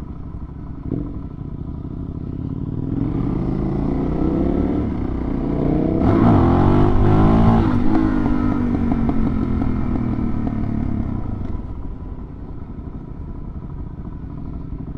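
Dual-sport motorcycle engine accelerating: the engine note climbs and swells with wind rush over the microphone, loudest about six to eight seconds in, then eases back to a steady cruise.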